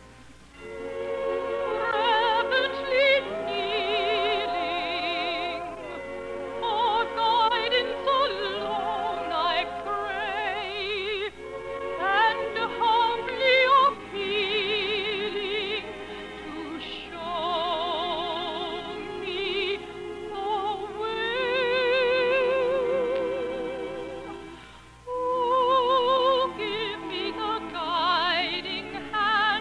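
Operetta singing: a trained voice with a wide vibrato holding long notes over orchestral accompaniment, in a narrow-band early-1950s radio recording. There is a brief break about 25 seconds in.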